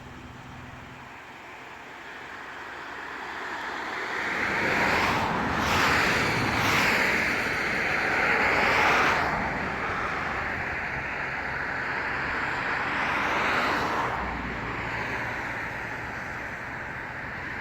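Tyre hiss from a vehicle passing on a wet road, swelling over a few seconds, holding loud, then fading away.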